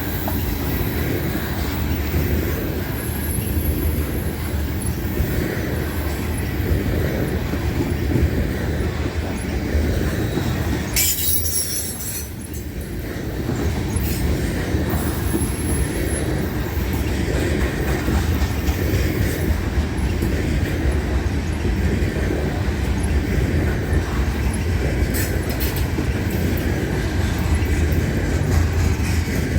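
Loaded coal hopper cars of a freight train rolling past at close range: a steady rumble of wheels on rail, with a faint high wheel squeal now and then and a brief hiss about eleven seconds in.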